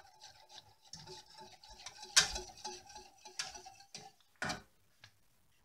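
Wire whisk stirring milk, sugar and pudding powder in a stainless steel saucepan as the pudding cooks, its wires ticking quickly and regularly against the pan. A few sharper knocks of metal on the pan come through, the loudest a little past two seconds in.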